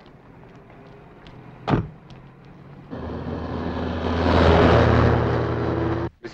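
A car driving, its engine swelling louder from about three seconds in before cutting off abruptly near the end, with one sharp thump about two seconds in.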